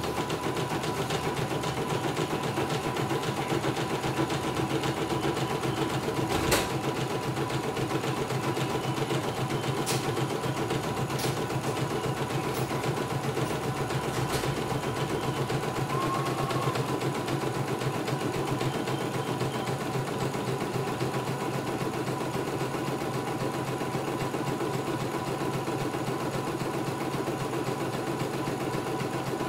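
CNY E900 computerized embroidery machine stitching steadily at speed, its needle running in an even rapid rhythm while the hoop is moved through a lettering design. A sharp click about six and a half seconds in, with a few fainter clicks later.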